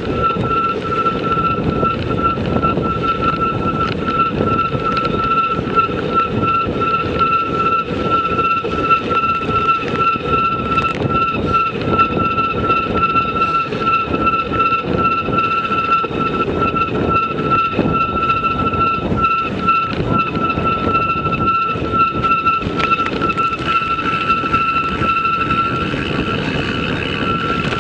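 A vehicle in motion: a steady rumble with a dense rattle, and a constant high whine over it.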